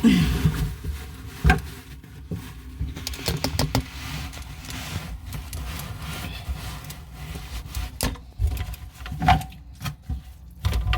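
Handling noise from fitting a bathroom sink faucet: irregular clicks, taps and rubbing as the parts and mounting nuts are worked by hand.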